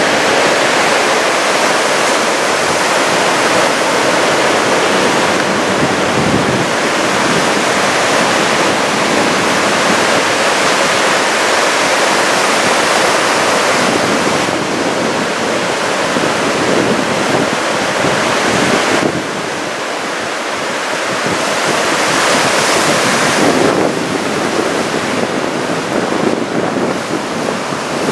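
Large typhoon-swell surf breaking and washing in a steady roar that swells and eases, with wind buffeting the microphone.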